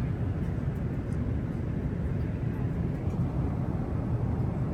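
Steady cabin roar of a Boeing 777-300ER in flight: a constant low rumble of engines and rushing air, with a few faint small ticks.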